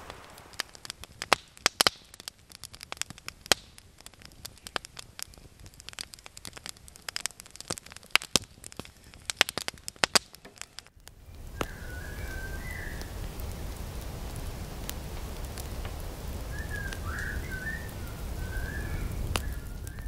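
Wood fire crackling with sharp, irregular pops. About eleven seconds in it changes suddenly to a steady low rumble with a few faint high whistles.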